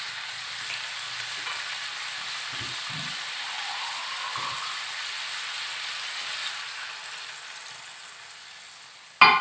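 Chicken pieces sizzling in hot oil and butter in a pan, just after a splash of water has been added. The steady sizzle slowly dies down, and one sharp knock sounds near the end.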